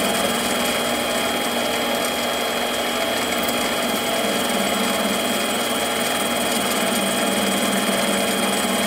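Mini lathe running steadily under a facing cut on 1018 mild steel: an even motor and gear whine with the hiss of the tool cutting, chips flying off the work.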